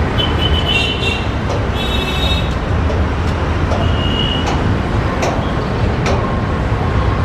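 Passenger train of coaches rolling slowly into a station yard: a steady low rumble with sharp clicks from the wheels now and then and a few brief high-pitched squeals.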